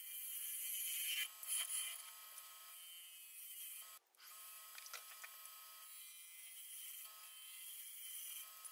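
Bowl gouge cutting the inside of a mahogany bowl spinning on a wood lathe: a high hiss of shavings being cut, with a faint steady machine whine. The sound swells a little in the first couple of seconds and drops out briefly about four seconds in.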